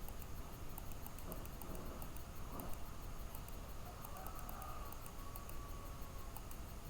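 Quiet room tone: a low, even background hiss with a few faint ticks and no clear sound event.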